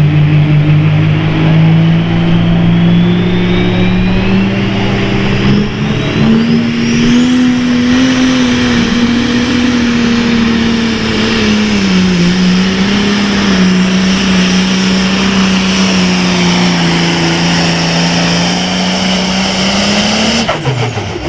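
Super Farm pulling tractor's turbocharged diesel engine running flat out under load, its note climbing over the first few seconds and holding, with a high turbo whine rising steeply and then staying up. The engine note dips briefly near the middle and drops off suddenly near the end as the throttle is let off.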